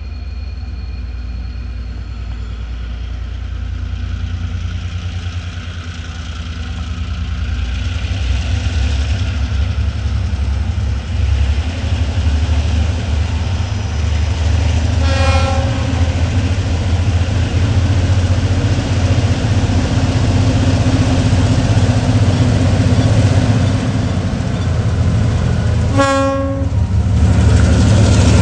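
TasRail DQ class diesel-electric locomotive hauling an empty ore train, its low engine rumble growing louder as it approaches. Its horn sounds twice: a brief blast about halfway through and a slightly longer one near the end.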